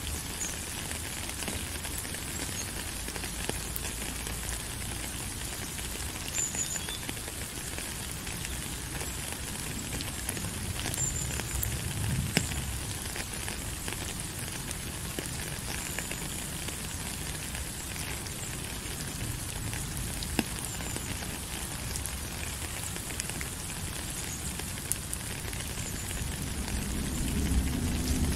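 Steady rain: an even hiss dotted with the crackle of single drops striking. A low rumble swells near the end.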